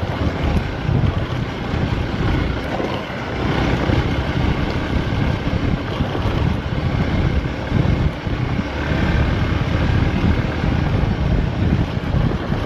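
Vehicle driving off-road: a steady rumbling drive noise with uneven low gusts of wind buffeting the microphone.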